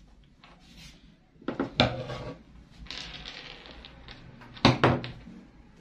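Heavy djellaba fabric rustling as it is lifted and moved on a cutting table, with a loud knock about a third of the way in. Near the end there is a sharp clack from large tailor's scissors.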